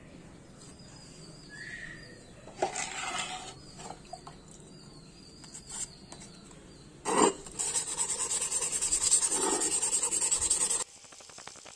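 Waterproof 400-grit sandpaper scraping back and forth quickly over a Yamaha RX100 engine side cover, wet sanding the old finish off before buffing. The rapid strokes go on for about three seconds and stop abruptly near the end. Before them come a couple of knocks as the cover is handled, the second the loudest.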